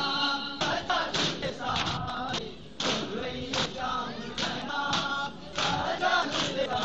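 Male noha reciter singing a Shia lament in Urdu, over a steady beat of thuds from matam, mourners striking their chests in rhythm, a little under one strike a second.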